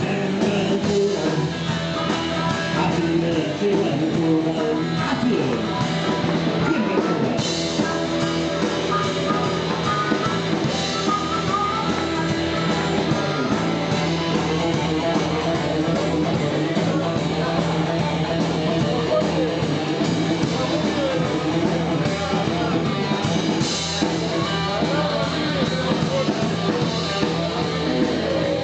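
Rock-and-roll boogie band playing an instrumental passage led by electric guitar over a steady bass line.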